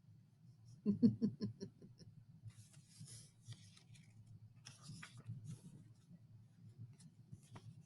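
Paper rustling as picture-book pages are handled and turned, with a couple of light clicks near the end. About a second in there is a short vocal sound: a quick run of rapid pulses.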